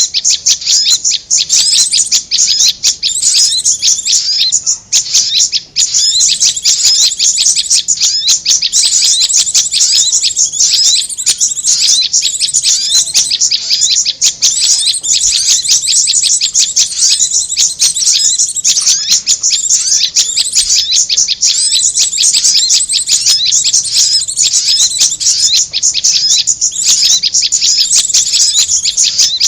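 Bird-trapping lure recording of small songbirds: a dense, unbroken stream of rapid, high-pitched chirps, a mix of prenjak (prinia) and korlap calls.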